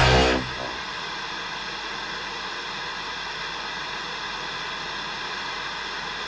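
The song's music cuts off just after the start, leaving a steady hiss of static-like noise.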